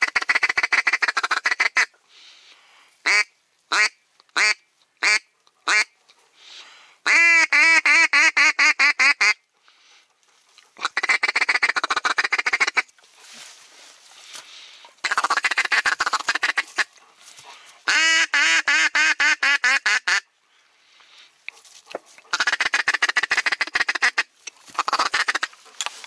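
Duck quacks in repeated series: about half a dozen runs of rapid quacks, each lasting a couple of seconds, with short pauses between them, and a few single spaced quacks early on. The run about 7 to 9 seconds in is the loudest and fullest.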